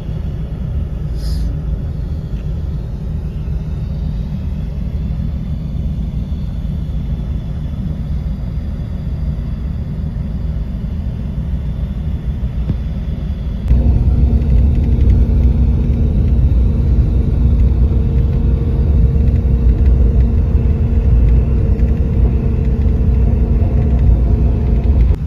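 Moving bus heard from inside the cabin: a steady low rumble of engine and road noise. A little over halfway through it abruptly gets louder, and a steady low hum comes in.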